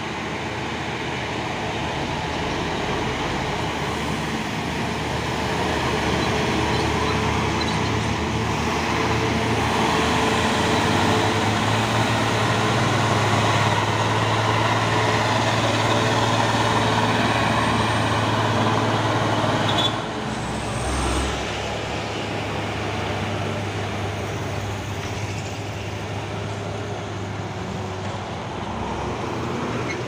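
Truck diesel engines pulling up a hill, chiefly a loaded orange Mitsubishi Fuso with a Mitsubishi Canter HDL 136 PS beside it. The steady engine drone grows louder as the Fuso passes close by about halfway through, then eases off a little.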